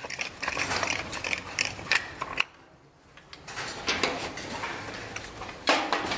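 Irregular mechanical clicking and rattling, with a short pause about two and a half seconds in.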